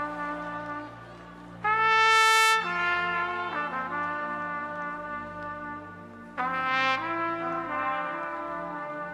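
Slow solo trumpet playing long held notes, with two loud bright notes struck about two seconds in and again near six and a half seconds, over a steady sustained low accompaniment.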